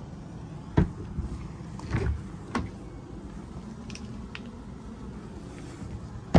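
Motorhome exterior locker doors being opened and shut: a few sharp latch clicks and knocks, the loudest a slam right at the end.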